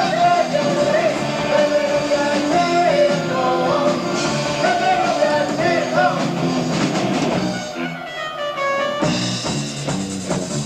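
Italian progressive rock band playing live, heard on an amateur cassette recording: a wavering sung or flute-like melody over keyboards, electric guitar, bass and drums. The bass and drums drop out for about a second near the end while a run of tones sweeps up, then the full band comes back in.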